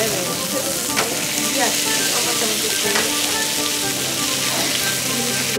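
Steaks sizzling steadily as they fry in a hot nonstick pan, with two light clicks about one and three seconds in.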